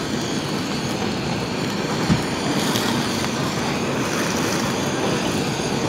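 A Chinese restaurant's gas wok burner and exhaust hood running with a steady rushing noise, with a single knock about two seconds in.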